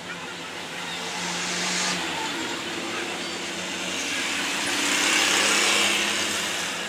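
Road traffic going by: engine noise that swells twice, as vehicles pass close.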